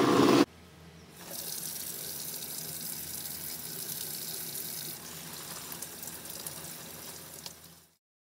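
Kitchen tap running into a sink, its stream splashing over hands rinsing mantis shrimp in a wire-mesh strainer. The steady rush of water starts about a second in and cuts off suddenly near the end.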